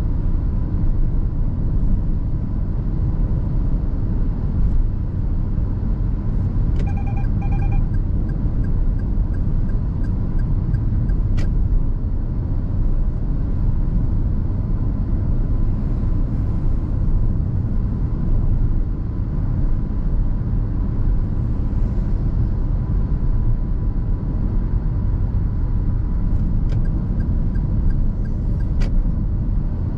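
In-cabin sound of a 2021 Perodua Ativa 1.0 Turbo cruising: its three-cylinder turbo engine and the tyres make a steady low rumble. About seven seconds in there is a short double beep, and a few faint clicks come later.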